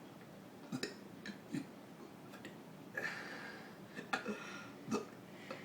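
A person burping letters of the alphabet: a string of short, faint burps and mouth clicks at irregular spacing, with a breathy gulp of air about three seconds in.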